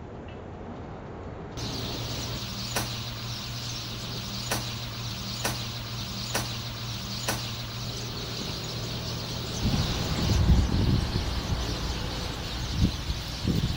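A steady low mechanical hum with a few sharp clicks about a second apart; about two-thirds of the way through, the hum stops and irregular low rumbling takes over.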